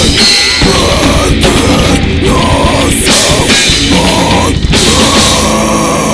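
Death metal band playing live at full volume: distorted guitars, bass and drums. About five seconds in the music settles into a single held chord.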